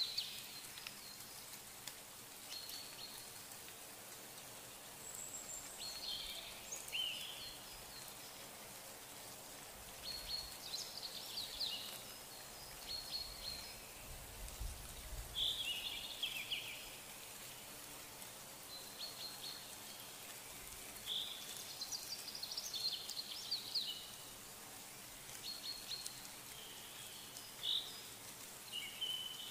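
Small birds chirping in short high phrases every few seconds, over a faint steady outdoor hiss.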